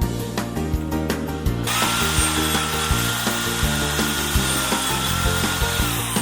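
A power tool starts up about one and a half seconds in and runs with a steady whine, which drops in pitch as the motor winds down near the end. Background music with a steady beat plays underneath.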